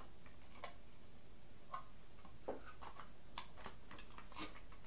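A handful of faint, irregularly spaced small clicks and ticks from a Gevabox box camera's film insert and a roll of 120 film being handled as the film is threaded onto the spool.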